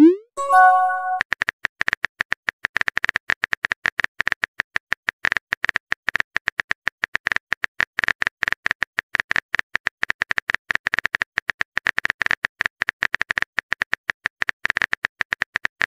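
Rapid keyboard-tap clicks of a phone texting sound effect as a message is typed. At the very start there is a short rising swoop and a brief chime, the message-sent sound.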